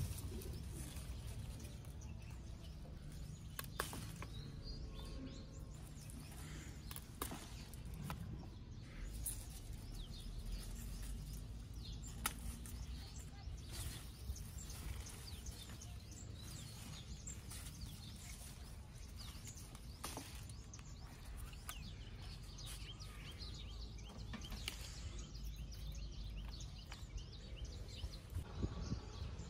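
Outdoor background noise: a steady low rumble with scattered small clicks and faint bird chirps now and then.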